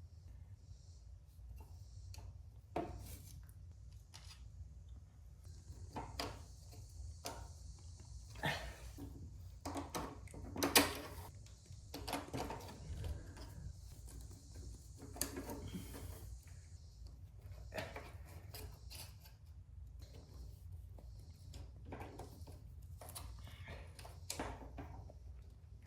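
Scattered clinks and knocks of hand tools on metal as a motorcycle's stuck rear sprocket is worked on, the sharpest knock about 11 seconds in. A steady hiss runs for about ten seconds in the middle.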